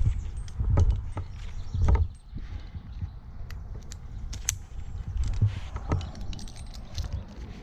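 Scattered knocks and light metallic clinks from a tree climber's gear, over a steady low rumble on the microphone.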